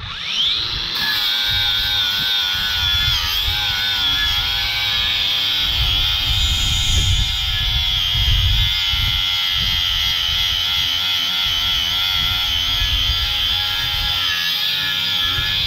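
Harbor Freight Earthquake XT 20V brushless 4-1/2 inch angle grinder spinning up to a steady high whine, then grinding a rusty cast-iron brake rotor with a flap disc. Wind rumbles on the microphone.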